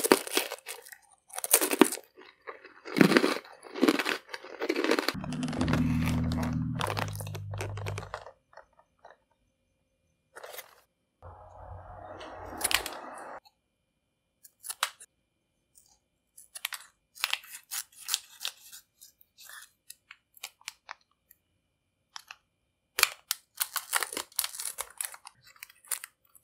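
Crunchy bites and chewing of a hard pretzel rod dipped in chocolate, with a low hum lasting about three seconds. Later comes the handling of plastic icing pouches and candy sprinkle packets: crinkling, a tearing rustle and scattered small clicks as they are snipped open with scissors.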